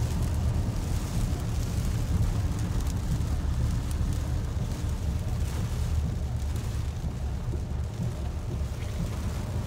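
Steady low rumble inside a moving car's cabin during heavy rain, with a hiss of rain and wet road over it.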